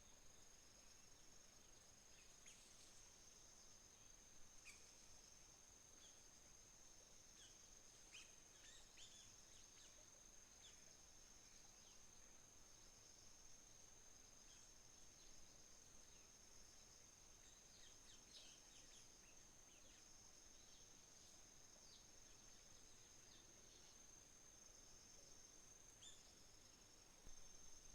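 Crickets trilling in one steady, unbroken high-pitched note, with a second, patchier insect trill just below it. Scattered short bird chirps come and go throughout. The whole is faint.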